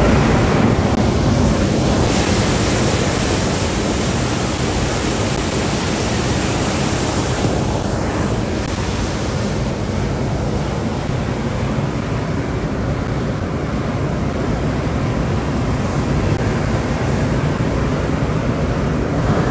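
Hot air balloon propane burner firing in one long, steady, loud blast.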